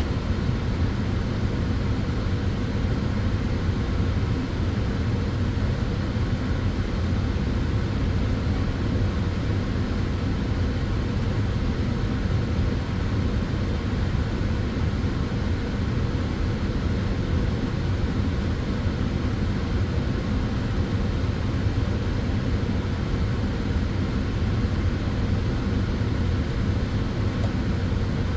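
Solarium sunbed running: a steady, deep whooshing hum of its cooling fans, unchanging throughout.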